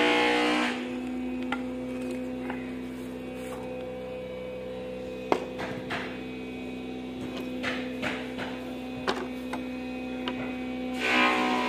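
Steady electrical hum with a few faint clicks scattered through it, and a louder rush of noise near the end.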